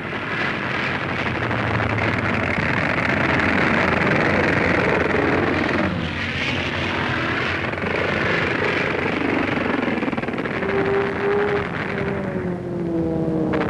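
Piston-engined fighter aircraft running at full power, a loud steady roar that dips briefly about six seconds in. Near the end a falling whine sets in, as of a plane diving away.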